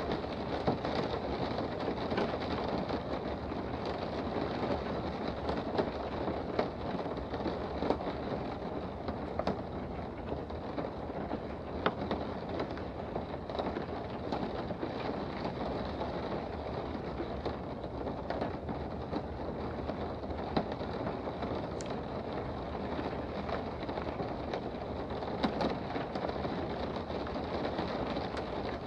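Steady rain heard from indoors: an even hiss with scattered sharp ticks of single drops.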